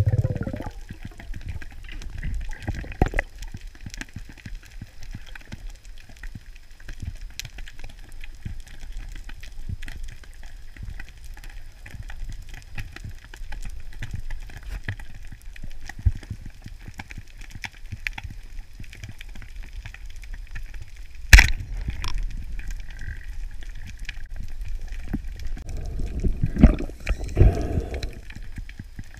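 Underwater ambience on a reef: a low muffled rumble with constant faint crackling clicks. About three quarters of the way through comes a single sharp crack, a speargun shot, followed near the end by a few louder muffled bursts as the speared fish is handled.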